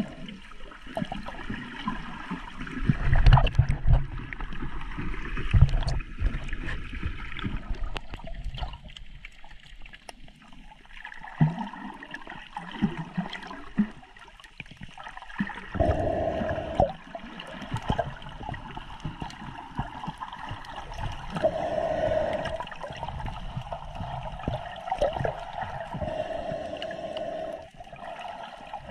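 Sea water sloshing and gurgling, with a few low thumps about three to six seconds in.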